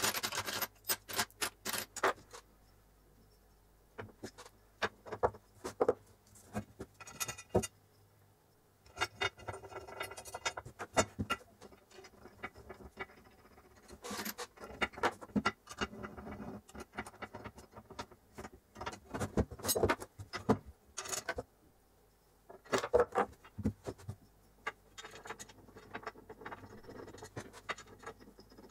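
Metal parts handled on a workbench: irregular clinks, knocks and rattles as aluminium bars, rods and bolts are picked up, set down and fitted together, with a few brief pauses.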